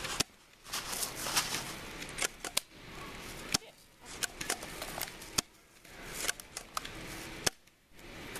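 Airsoft guns firing single shots: sharp snapping clicks, about a dozen, spaced irregularly.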